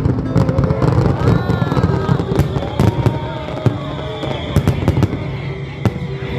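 Fireworks display: aerial shells bursting with sharp bangs and crackling, many in quick succession, with music playing underneath.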